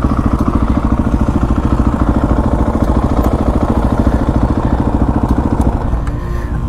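Motorcycle engine idling with an even, fast pulse, which settles and thins out about six seconds in.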